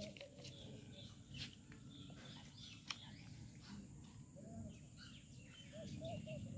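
Faint outdoor ambience with scattered, short bird chirps and calls.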